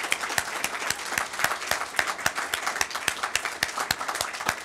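Audience applauding: many people clapping steadily at once.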